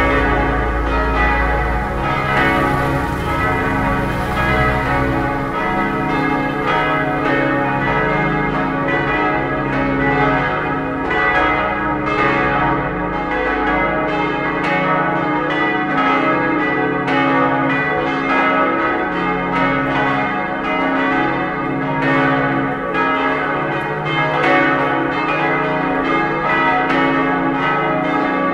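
Peal of church bells ringing together, strokes overlapping without a break over a sustained hum; the set is tuned D-flat, E-flat, G-flat, A-flat and B-flat, with three bells cast by Otto of Bremen in 1954. A low rumble sits under the bells in the first couple of seconds.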